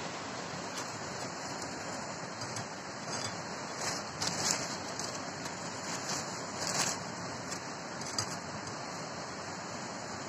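Steady rushing background hiss, with a few short crackles of dry bamboo leaves and sheaths disturbed as a machete is worked at the base of a bamboo shoot.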